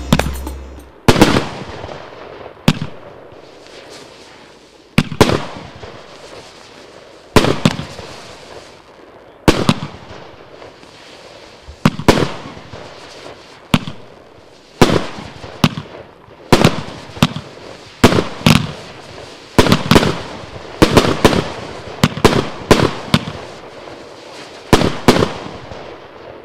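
A consumer firework cake, Pangu Fireworks' Fortaleza, firing: a sequence of about twenty sharp shots, each trailing off, spaced a couple of seconds apart at first and coming faster and closer together in the second half.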